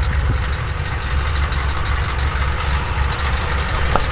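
HMMWV (Humvee) V8 diesel engine idling steadily, a low, fast-pulsing rumble.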